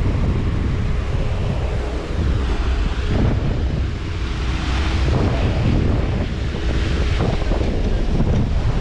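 Wind buffeting the microphone over a steady rush of sea, with a faint steady motor hum underneath.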